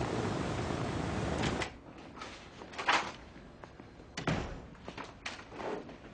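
Steady drone of a B-29 Superfortress's radial engines, cut off abruptly after about a second and a half. Then a wooden door opening and closing, with a few sharp knocks.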